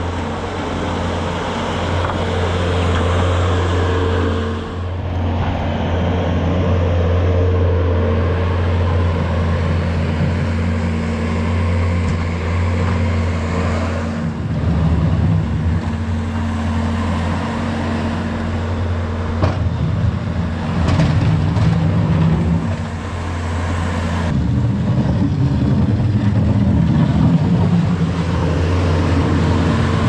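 Bobcat skid steer's diesel engine running steadily while the machine works the bucket, its note shifting as it moves and takes load, with a few knocks in the second half.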